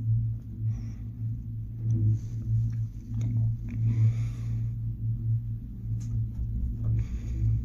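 Cable car gondola riding along its cable: a steady low hum and rumble inside the cabin, wavering in level, with brief soft hissing now and then.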